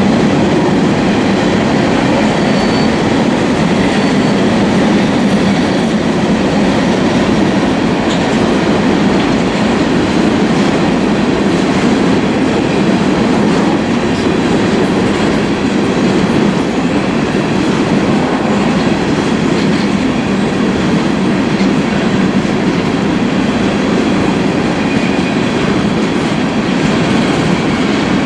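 Empty coal cars of a freight train rolling past, a steady noise of steel wheels running on the rails.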